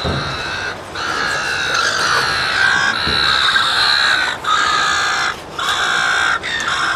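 Gulls calling: a string of long calls, about six of them, with short breaks between.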